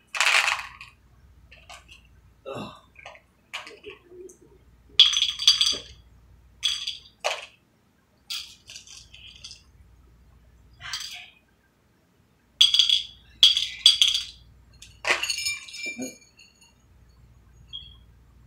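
Small metal cups clinking and ringing against each other and the bowls as jelly beans are handled and dropped into them: a scatter of separate short clinks with quiet gaps between.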